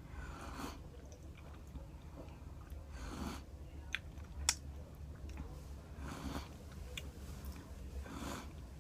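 Close-up chewing and biting of food, most likely a chicken sandwich: soft mouth noises every two to three seconds, with two sharp clicks near the middle.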